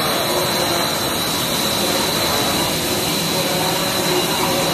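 ABS plastic pelletizing line running: a steady, even wash of machinery noise with a thin high whine held throughout.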